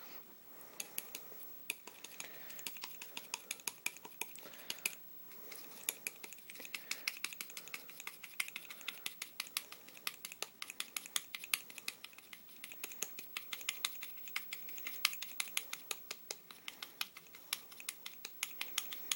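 Rapid light clicking of a fine-tipped soldering iron tapped again and again on a SIG P226 pistol grip while stippling it, several taps a second with a brief pause about five seconds in.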